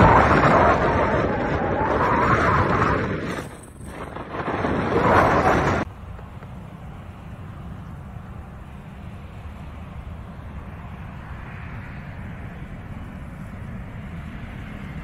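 Wind buffeting the microphone, loud and gusty with a brief dip near four seconds; then it cuts off suddenly to the quieter, steady sound of a Pilatus PC-12's single turboprop engine and propeller as the aircraft comes in to land.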